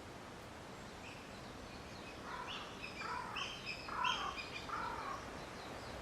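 A bird calling four times in quick succession, each call a short dipping note with higher tones above it, over a steady hiss of wind rustling through leafy trees.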